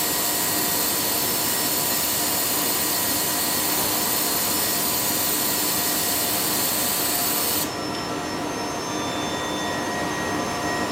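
Wide-format inkjet printer running as the print feeds out: a steady rushing of fans or vacuum with a few steady tones under it. About three-quarters of the way through, the high hiss cuts off suddenly and the sound drops to a lower hum, the tones still running.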